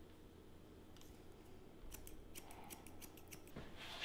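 Hair-cutting shears snipping: a quick run of about a dozen faint snips starting about two seconds in, as they point-cut into the ends of a bob to take weight out.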